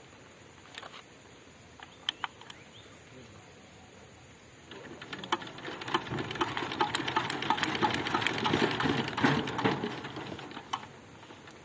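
Old single-cylinder 'dores' diesel engine being hand-cranked: a fast rhythmic clatter of the engine turning over starts a little before halfway, builds for about five seconds, then dies away without the engine catching. A few separate knocks come before it.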